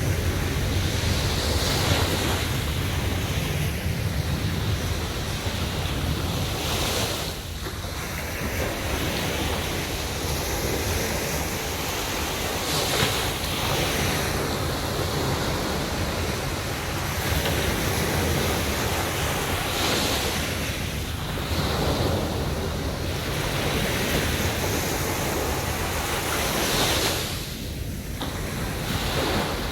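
Sea waves breaking on a beach: a continuous rush of surf that swells every few seconds as each wave comes in and washes back.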